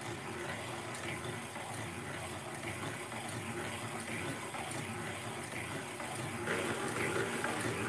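Hand-cranked circular sock knitting machine being cranked round steadily, knitting rows: a continuous rushing whir of the needles running through the cams, a little louder about six and a half seconds in.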